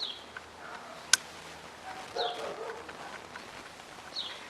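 Short animal calls repeating every couple of seconds, with one sharp click a little over a second in.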